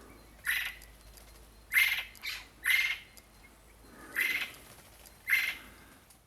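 A bird gives about six short, harsh calls, roughly one a second.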